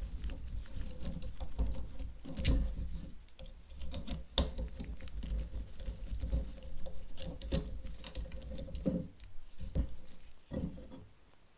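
Irregular small metallic clicks and scratchy handling sounds of a 3 mm Allen key undoing the pulley-wheel bolts of a SRAM Eagle 12-speed rear derailleur and taking the original pulley wheels off, with a few sharper clicks about two and a half and four and a half seconds in.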